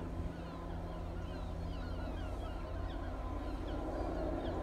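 Distant Bristow coastguard helicopter over the sea, heard as a low steady drone with a thin steady whine, growing slightly louder. Small birds chirp over it, several short chirps a second.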